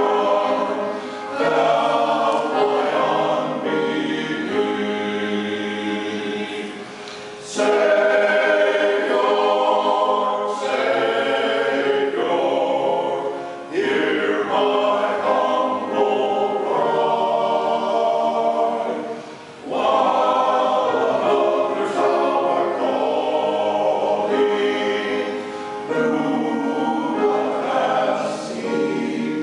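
Small men's choir of six voices singing a hymn verse together, in phrases of about six seconds with short breaks for breath between them.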